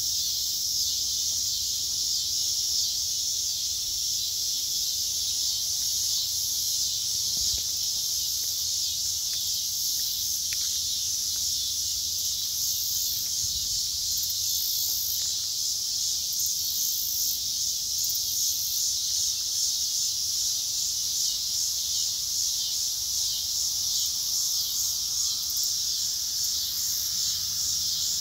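A steady, high-pitched chorus of insects, a dense pulsing buzz that does not let up.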